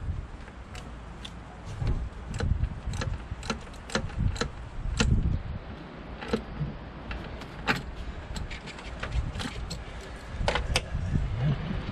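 Irregular sharp clicks, taps and light metallic rattles of parts and fittings being handled and refitted on top of a four-cylinder diesel engine, over a low, uneven rumble.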